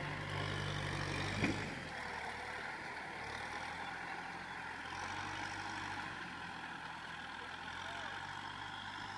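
Kubota tractor's diesel engine running, loud for the first couple of seconds and then fainter and steady as the tractor pulls away, with a single knock about one and a half seconds in.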